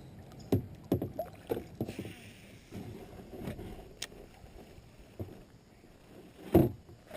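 Scattered knocks and thumps of fishing gear being handled in a small boat, the loudest about six and a half seconds in, with a brief hiss around two seconds in.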